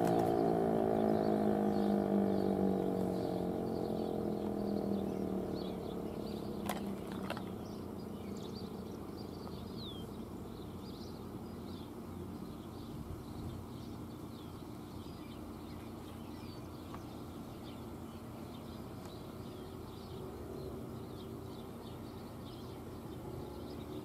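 Federal Signal Eclipse 8 electronic outdoor warning siren ending its alert tone: the sustained tone slides down in pitch and dies away over the first five or six seconds. Faint bird chirps and outdoor background noise remain, with one sharp click about seven seconds in.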